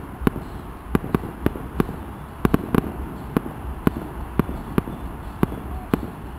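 Aerial firework shells bursting: an irregular string of sharp bangs, about two to three a second.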